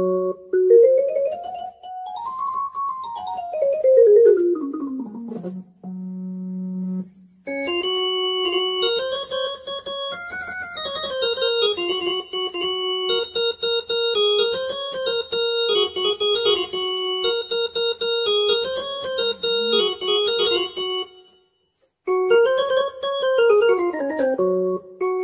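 Casio CTK-2550 electronic keyboard played on one of its built-in tones: a quick scale up and back down, a held low note, then a short single-line melody. After a brief pause there is another scale run up and down near the end.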